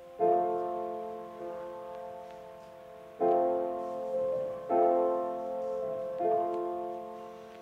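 Background piano music: soft held chords, a new one struck four times, each ringing out and fading.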